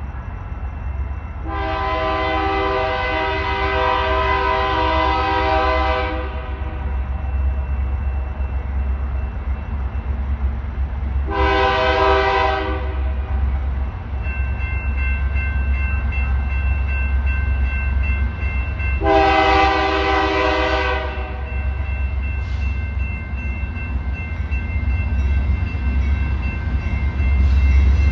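A freight diesel locomotive's air horn blows a chord in three blasts as the train approaches: a long one of about four seconds, then two of about two seconds each, with a fourth starting at the very end. Under the horn runs a steady low rumble that grows louder as the train nears.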